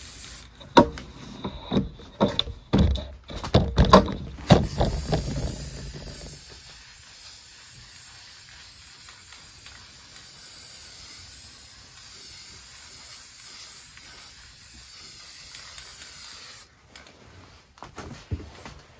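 Aerosol spray-paint can spraying in one long, steady hiss that stops abruptly a couple of seconds before the end, after a few seconds of knocks and clatter at the start.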